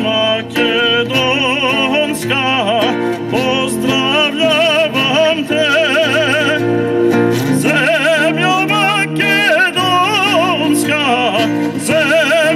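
A man singing in a strong, operatic voice with wide vibrato and long held notes, accompanied by an acoustic guitar.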